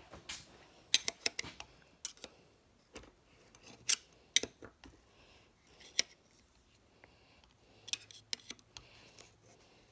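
Irregular sharp metallic clicks and scrapes, in small clusters, as a screwdriver and fingers work steel clutch plates into the drum of a John Deere 310D reverser forward clutch pack.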